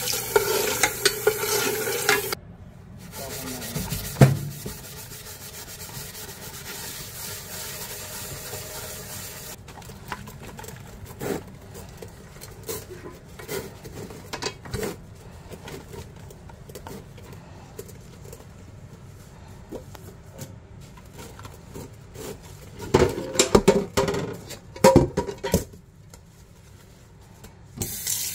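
Kitchen tap water running into a stainless steel pot for about two seconds, then turned off. Then a hand rubbing and scrubbing the inside of the pot in soapy water, working burnt-on food residue loose, in many short strokes, with a few harder bursts of scrubbing near the end; the tap comes back on at the very end.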